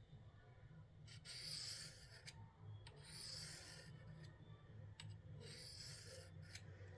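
Knife blade drawn along the ceramic rod of a guided sharpening system: three faint scraping strokes about a second apart, each lasting just under a second, with light clicks of the blade meeting the guide in between.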